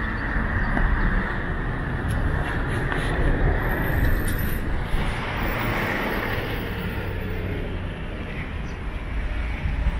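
Steady road traffic noise from vehicles on a city street, with a deep low rumble and no distinct events standing out.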